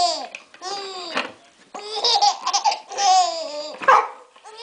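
Baby laughing in several high-pitched bursts of giggles and squealing laughs, some falling in pitch, some broken into quick stuttering pulses.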